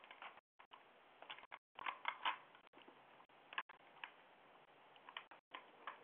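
Faint steady hiss from a video doorbell's microphone, cut by several brief dropouts, with scattered faint clicks and a small cluster of them about two seconds in.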